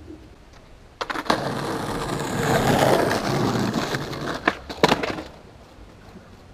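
Skateboard wheels rolling on concrete, swelling and fading over a few seconds, then two sharp clacks about half a second apart: the tail popping for a flip attempt and the board slapping back down on the pavement.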